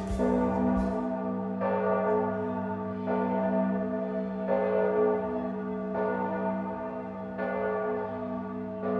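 A bell tolling slowly, struck about once every second and a half, each stroke ringing on into the next over a steady low hum.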